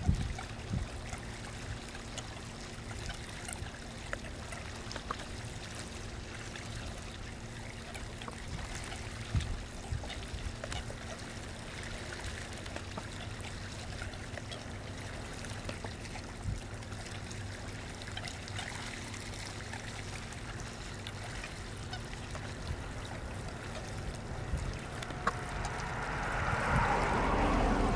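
A flock of American coots clucking and calling in short notes over lapping water, with a steady low hum underneath. Near the end a louder rush of splashing noise builds up.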